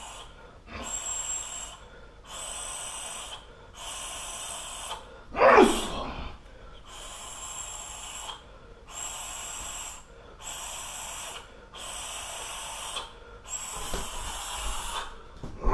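Heavy, rhythmic breathing: about nine hissing breaths, roughly one every second and a half. A louder voiced sound falling in pitch comes about five and a half seconds in.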